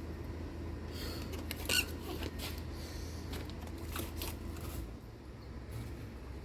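Light handling of small parts: scattered small clicks and rustles, one sharper click just under two seconds in, over a steady low hum that drops away about five seconds in.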